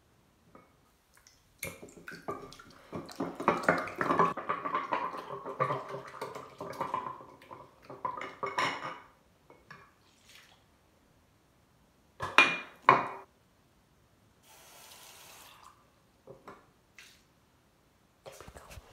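Water from a bathroom sink tap running and splashing while a dish is washed, with small clinks and knocks. Two louder clatters come about two-thirds of the way through, followed by a short hiss of water.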